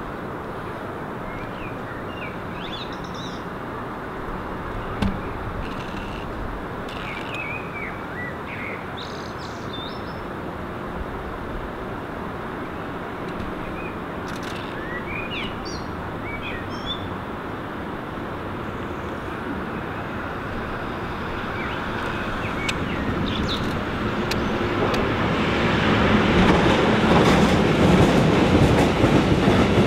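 Electric freight locomotive hauling a long train of hopper wagons, approaching: a rumble that grows steadily louder through the second half until the train is running close by near the end. Birds chirp now and then in the first half.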